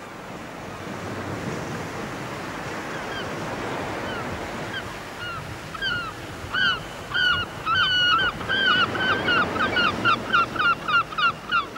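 Surf washing on a beach, swelling over the first few seconds, with a bird's short repeated calls starting about halfway through and quickening toward the end.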